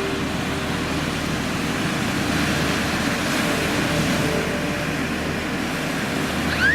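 Steady rushing wash of sea surf, with a faint steady hum underneath. A short high squeal rises and falls right at the end.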